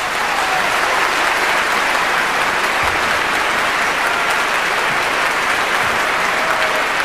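Opera-house audience applauding, a dense, steady clapping that holds at full strength throughout.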